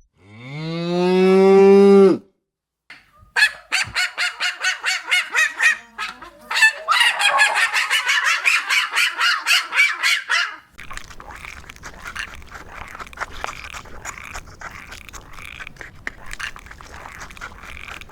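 A series of farm animal calls: a two-second call rising in pitch, then a long run of rapid honking calls, several a second, like geese or ducks, then a busier flock chatter with fainter calls.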